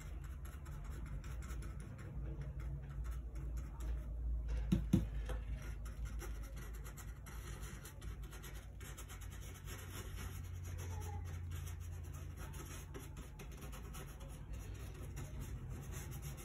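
Bristle paintbrush scratching and scrubbing oil paint onto a gessoed panel in repeated short strokes, over a low steady hum.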